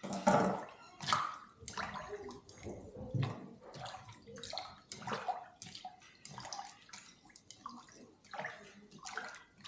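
Water splashing and sloshing in a string of short, irregular bursts, about one a second, the loudest at the start.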